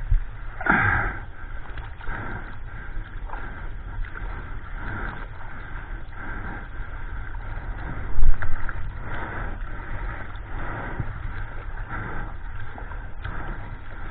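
Sea water splashing and washing over the nose of a 9-foot Ron Jon surfboard, heard close up from a camera mounted on the board, with a low rumble of water buffeting the microphone. Louder splashes come about a second in and again about eight seconds in, with softer surges roughly every second in between.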